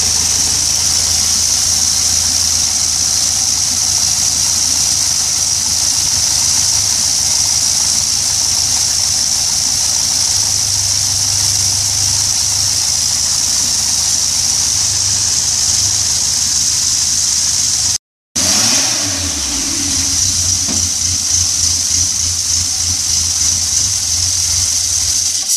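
Seat 600 engine, a small rear-mounted four-cylinder, running steadily at idle with the engine compartment open. About two-thirds of the way through the sound breaks off for a moment. It comes back with a short change in engine speed and a more uneven pulse.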